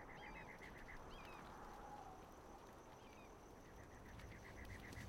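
Faint desert ambience: an insect chirring in rapid pulses, about eight a second, with short bird chirps every second or two.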